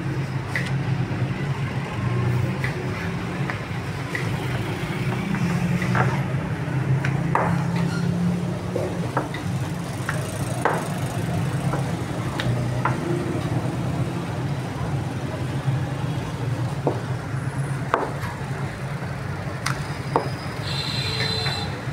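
Steady low rumble of road traffic, with scattered sharp taps and knocks of a wooden rolling pin on a marble slab as stacked dough sheets are rolled out.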